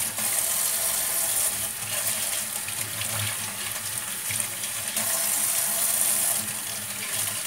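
Water running from a tap into a basin, splashing harder in two spells, at the start and again about five seconds in.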